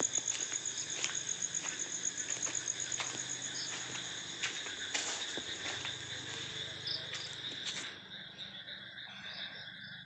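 Crickets chirring in a fast, steady pulsing trill at two high pitches, which fades out about eight seconds in. A few faint clicks are scattered through it.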